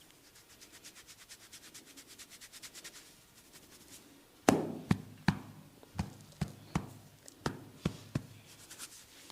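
Hand massage percussion: a fast, even run of light tapping or rubbing strokes, about five a second. Then about nine sharp slaps, roughly two a second, the first the loudest.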